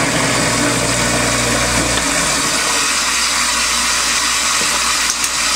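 Kitchen faucet water running and splashing into the sink basin while the sink's garbage disposal motor hums; the hum stops about two seconds in and the water keeps running.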